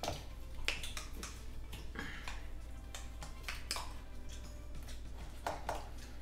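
A utensil stirring frozen fruit in a cup of lemonade, with scattered clicks and taps as it knocks against the fruit and the cup.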